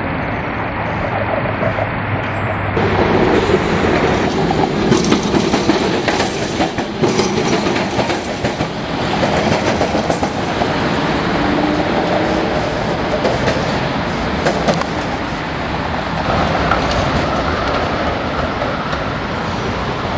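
Vintage W-class electric tram running along street track, its wheels rumbling and clattering over the rails, loudest as it passes close in the first half.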